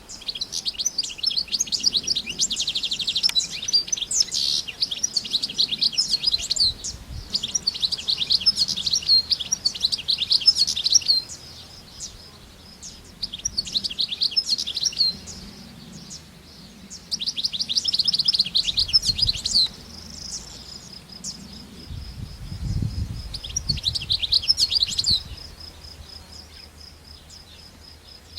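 European goldfinch singing: phrases of rapid, twittering high notes, each a few seconds long, separated by short pauses filled with a thin, even run of high notes.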